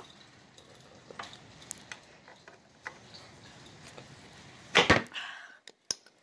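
A few faint clicks and taps of a 10 mm wrench working the engine-mount bolts of a minibike, then one louder, short metallic clatter near the end.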